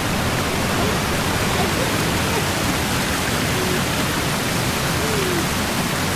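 Steady, even rush of a waterfall running strong after heavy rain.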